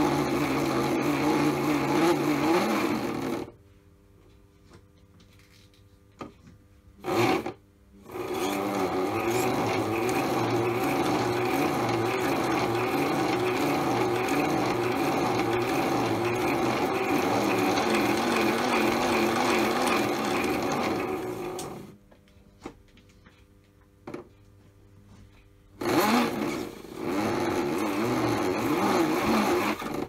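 Modified toy washing machine's small electric motor turning the drum through a wash with water, a steady whining run. It stops abruptly twice for about four seconds, with a brief burst of running during the first pause, then starts again.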